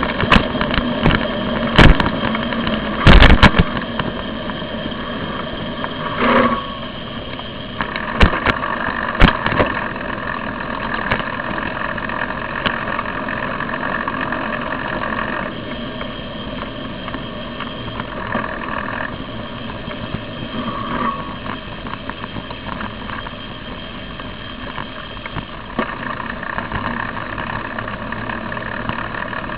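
Steady road noise picked up by a bicycle-mounted camera riding along a street among car traffic, with several sharp knocks in the first few seconds, the loudest about three seconds in.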